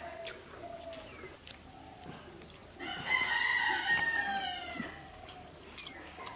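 A rooster crows once, loud and about two seconds long, starting about three seconds in and trailing off in a falling tone, with fainter clucking around it.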